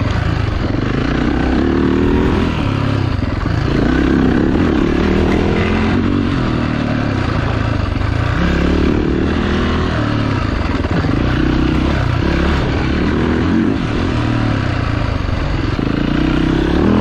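Off-road motorcycle engine running under throttle on a trail ride, its pitch rising and falling repeatedly as the rider rolls the throttle on and off.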